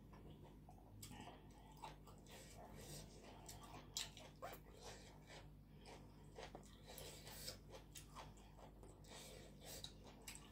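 Faint mouth sounds of a person chewing and biting chicken feet: irregular soft smacks and small crunches, with a few sharper clicks.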